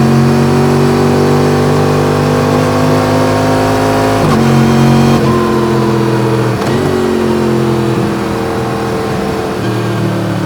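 Yamaha MT-10's crossplane inline-four with an Akrapovič exhaust, pulling through the gears. The engine note climbs slowly and drops sharply at two upshifts, about four and six and a half seconds in, then the pitch slowly falls as the throttle eases off.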